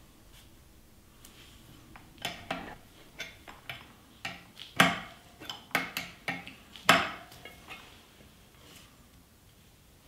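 Steel wrenches clinking on the hydraulic hose fitting of a scissor lift's power unit as the fitting is tightened: an irregular run of sharp metal clinks and taps, the loudest about five and seven seconds in.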